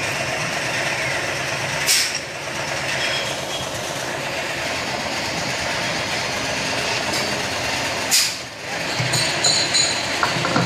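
Round screen printing machine (Taniya TI RS 50) running steadily through a print cycle on a drum, with a short sharp hiss about two seconds in and another about eight seconds in. A few knocks near the end as the printed drum is taken off.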